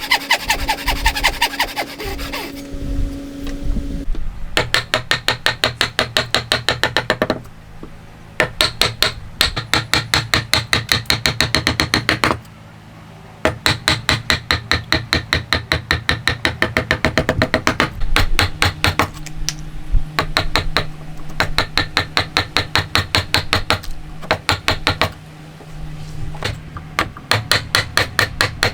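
Rapid, regular strokes of a hand tool working wood, about five a second, in runs of several seconds with short pauses, over background music.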